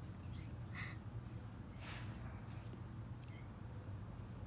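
A dog licking and mouthing a towel after a meal of raw pork ribs: a few wet licks and smacks, with short high squeaky chirps, over a steady low hum.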